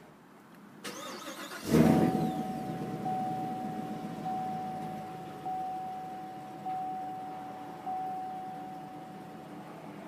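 2018 Chevrolet Camaro SS's 6.2-litre V8 cranked by the starter about a second in, catching with a loud flare of revs and settling into idle that slowly quietens, with the exhaust in the quieter Auto sound mode. A steady high tone, pulsing about once a second, sounds over the idle until near the end.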